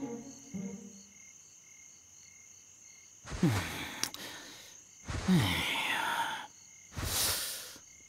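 Crickets chirping steadily in a cartoon night scene. A sleeping man snores three times, about three and a half, five and a half and seven seconds in, the first two with a falling pitch.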